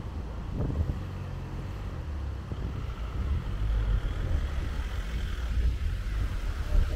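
Busy city street: an uneven low rumble of motor traffic, with wind buffeting the microphone.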